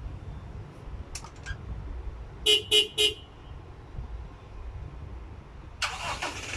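A few faint clicks, then three quick car-horn chirps from the aftermarket alarm confirming a remote start. About six seconds in, the car's engine cranks and starts.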